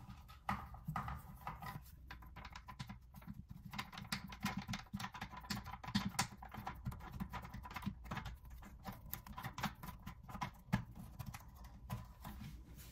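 Faint, irregular small clicks and scrapes of a plastic nut being turned by hand onto a toilet seat hinge screw under the porcelain bowl.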